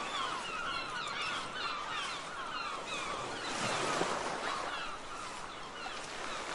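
Seagulls calling in quick runs of short, falling cries over the steady wash of sea waves. A wave surges up about three and a half seconds in, and the calls grow fainter after it.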